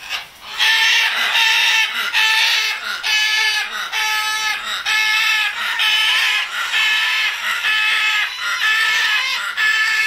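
A parrot calling over and over: a long string of clear, even-pitched calls, a little over one a second.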